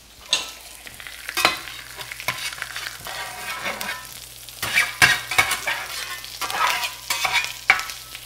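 Crab cakes and bacon sizzling in bacon grease and butter in a cast iron skillet, with a spatula scraping and knocking against the pan several times as they are worked and turned.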